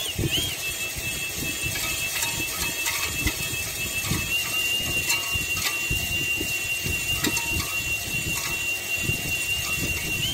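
Power-driven three-stone cylinder hone spinning in a cylinder bore of a Chevrolet 454 big-block V8 block as it is stroked quickly in and out: a steady high motor whine that steps slightly higher about four seconds in, over an irregular low rumble of the stones working the bore.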